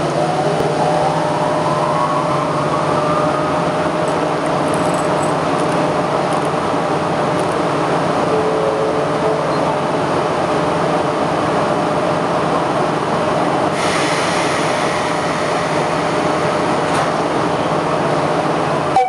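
EF66 electric locomotive standing with its equipment running: a steady mechanical drone with a constant hum, and a whine that rises in pitch over the first few seconds. A hiss joins about fourteen seconds in.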